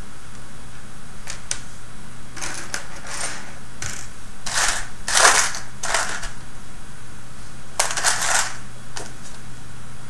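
Small plastic robot-kit frame pieces clattering and rattling in several short bursts as they are rummaged through and picked out by hand, over a steady low hum.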